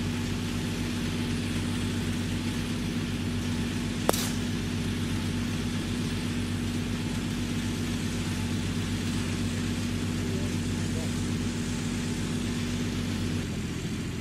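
A golf club strikes a ball once with a sharp crack about four seconds in. A steady low engine hum runs underneath and shifts slightly near the end.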